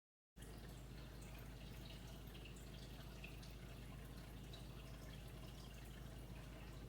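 Faint room tone: a steady low hum with scattered faint drip-like ticks, starting just after a moment of dead silence.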